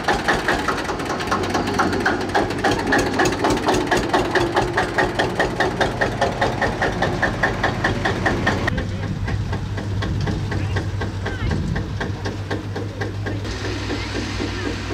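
Vintage tractor engine running with an even, slow beat of about three to four firings a second. About nine seconds in the sound changes abruptly to a lower, steadier engine hum.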